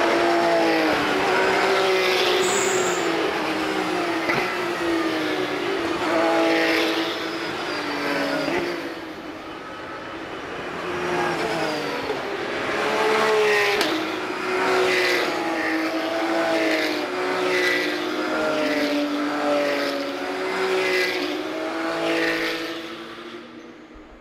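Several Porsche 911 GT3 Cup (992) race cars, each with a 4.0-litre flat-six, passing one after another at full throttle. Their engine notes repeatedly rise and drop as they shift up through the gears. The sound dips around ten seconds in and fades near the end.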